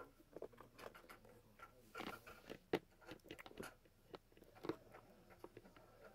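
Faint handling noise of small plastic toys: scattered light clicks and taps as a toy horse and plastic wagon are moved about by hand.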